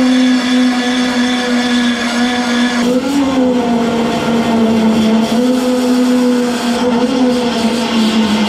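High-speed rotary power tool running with a steady whine, cutting the truck's sheet-metal bedside. Its pitch sags slightly about three seconds in and again near the end.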